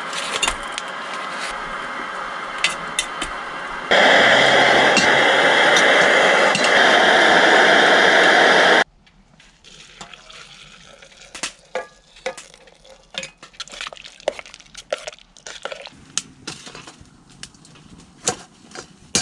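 Camp cooking in a pot: clicks and clinks of a utensil working the curry, with a loud, steady rushing hiss for about five seconds in the middle that starts and stops abruptly, then quieter scattered clicks and crackles.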